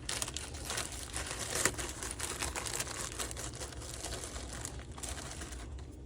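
Crinkly rustling and many small clicks and taps of hands handling small engine parts, with one sharper click about a second and a half in, easing off near the end.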